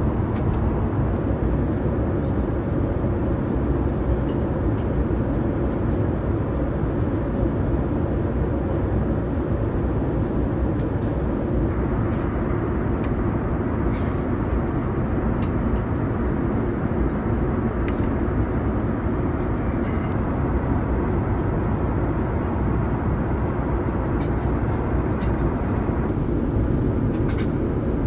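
Steady cabin noise of a Boeing 787-9 airliner in flight: the even rush of airflow and engines heard inside the cabin, with a few faint clicks.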